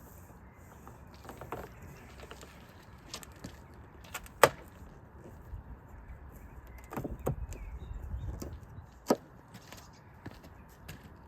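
Scattered handling knocks and taps while a number plate is fitted at the back of a car, with two sharp loud knocks, about four and a half seconds in and about nine seconds in, and a low rumble between them.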